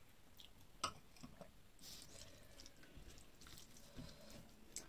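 Faint chewing and mouth sounds of someone eating by hand, with soft clicks of fingers working rice and dal on a steel plate and one sharp click about a second in.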